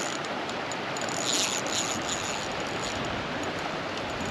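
Steady rush of flowing stream water, with a brief brighter hiss about a second and a half in.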